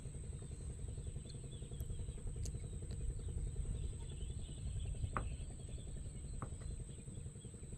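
Low steady outdoor rumble over open river water, with two short rising bird chirps about five and six and a half seconds in.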